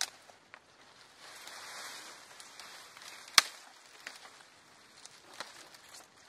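Dry branches being dragged through grass and broken: rustling, with a few sharp cracks of dry wood, the loudest about three and a half seconds in.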